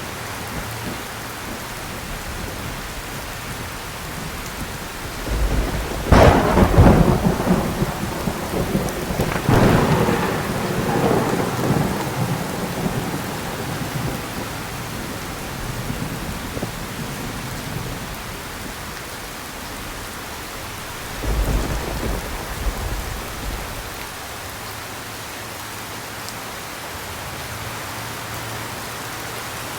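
Steady heavy rain with thunder: a loud crackling clap about six seconds in that rolls on with a second surge and rumbles away, then a fainter rumble about twenty seconds later.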